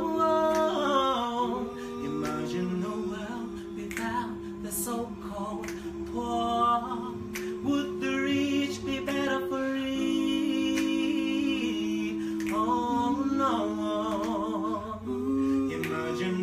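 Wordless singing, the voice sliding and bending between notes over steady held accompanying chord notes that shift every second or two.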